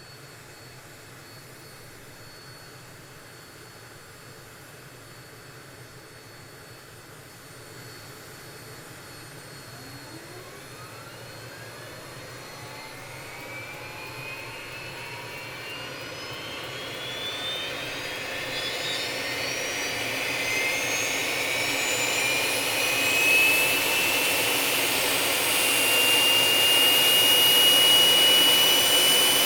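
Cessna Citation jet starting its second engine: after several seconds of low steady running, a turbine whine begins about a third of the way in and climbs steadily in pitch and loudness as the engine spools up. Near the end it settles into a loud, high, steady idle whine.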